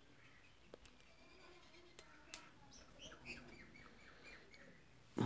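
Faint bird chirps in the background, with a few small sharp clicks as new push-button switches are fitted onto the scale's keypad circuit board, and a louder click at the very end.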